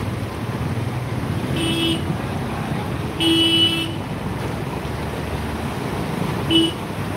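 A vehicle horn honks three times: a short honk, then a longer one of about half a second, then another short one near the end. Under it runs steady noise from traffic and rushing floodwater.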